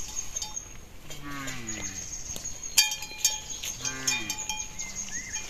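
Livestock calling twice, each a low call falling in pitch, with a bell clanking and ringing between the calls.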